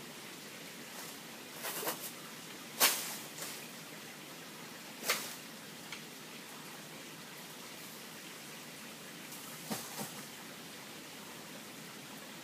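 Several sharp chops of a blade cutting through a coconut palm frond, coming at uneven gaps with the loudest about three seconds in, over a steady hiss of rain.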